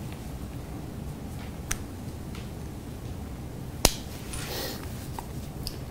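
Low steady room hum with a few small sharp clicks and a brief soft rustle, like light handling of phones or papers at a table; one sharp click about four seconds in is the loudest.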